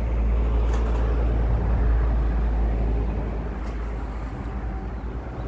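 Low outdoor rumble, swelling in the first couple of seconds and then easing off.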